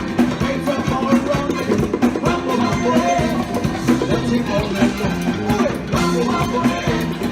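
Upbeat Latin-style background music with a steady beat, guitar and drums.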